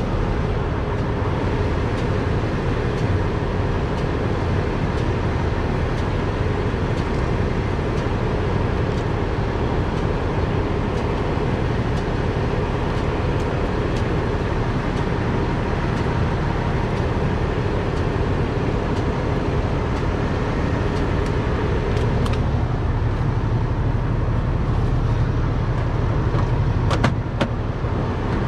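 Heavy truck diesel engine idling steadily close by, with a few sharp metal clicks near the end.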